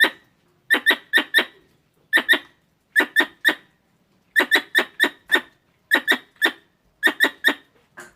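Squirrel calls: short, sharp chirps repeated in quick bursts of two to five, about four a second, with brief pauses between bursts.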